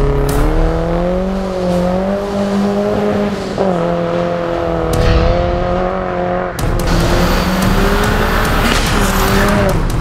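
Turbocharged Holden Astra's four-cylinder engine running at high revs under hard driving, its note wavering up and down and changing abruptly twice.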